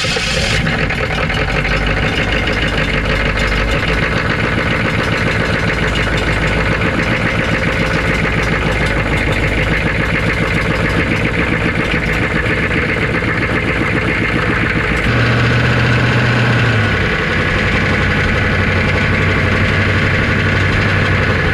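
Mail truck's running engine and spinning torque converter, picked up close-up from underneath through the open bell housing while driving: a loud, steady mechanical drone. Its tone changes abruptly about 15 seconds in, when a strong low hum comes in.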